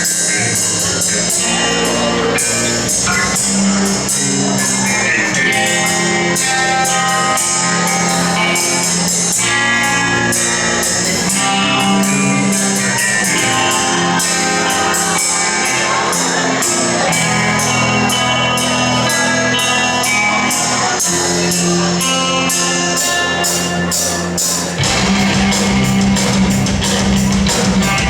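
Live rock band playing, with guitar and drums and a steady, even cymbal beat. About 25 seconds in, the low end fills out and the band comes in fuller and a little louder.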